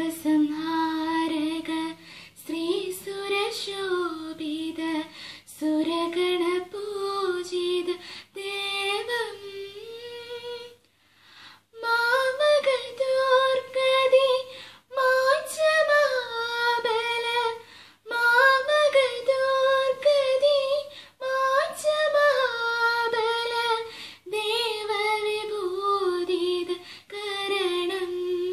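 A young woman singing a semi-classical Christian devotional song in Malayalam, solo and unaccompanied, in ornamented phrases of a few seconds with short breaks for breath.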